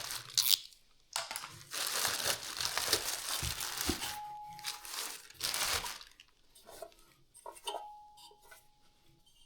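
Packaging being handled: crinkling and rustling of wrapping in loud bursts for about six seconds, then fainter clicks and handling noises, with a faint thin squeak twice.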